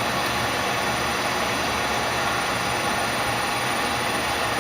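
Live tool spindles of a Tsugami BS-20BII CNC Swiss lathe running at 1,000 RPM: a steady machine whir with faint high whines.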